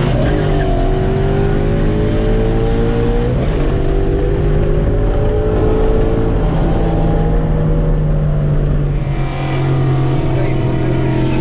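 Modified Ford Mustang V8 with long-tube headers and a cold air intake, accelerating hard, heard from inside the cabin. Engine pitch climbs through a gear, breaks at a shift about three and a half seconds in and climbs again, then levels off into a steadier drone in the last few seconds.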